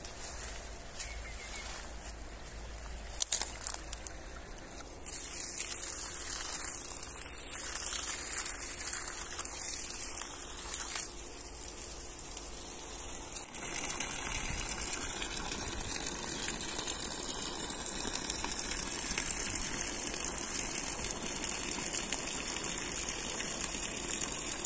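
Water gushing from a hose fed by a solar-powered dishwasher pump and splashing onto soil and plants. There are a few sharp knocks about three seconds in. About halfway through, the splashing steps up to a louder, steady pour.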